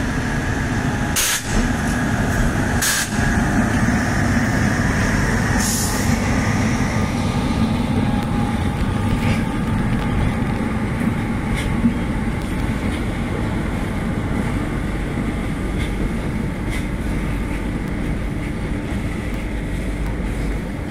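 Indian Railways WAG-9 electric locomotive passing slowly, with a steady whine that fades after about seven seconds as it goes by, followed by cement-loaded covered freight wagons rolling past with a low rumble and occasional sharp clicks from the wheels on the rails.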